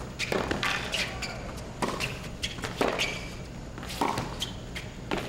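Tennis rally on a hard court: racket strings striking the ball back and forth, with ball bounces, a sharp knock about once a second.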